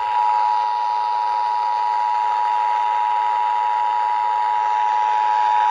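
Emergency Alert System two-tone attention signal: 853 and 960 Hz sounded together as one steady, unbroken tone over a hiss. It heralds the alert message of a required monthly EAS test.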